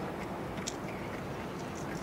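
Steady outdoor background noise with no distinct events, apart from a faint click about two-thirds of a second in.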